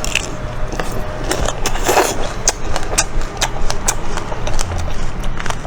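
Crackling and sharp clicks, with a noisier rustle about two seconds in, from a small pineapple-shaped ice cream bar being handled.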